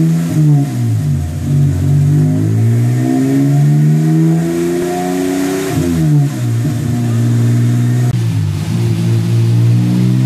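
BMW E30 325is M20 straight-six, turbocharged with a Holset HE351 at 10 psi, revving under load on a chassis dyno. Its pitch climbs for several seconds, drops sharply about six seconds in, then climbs again.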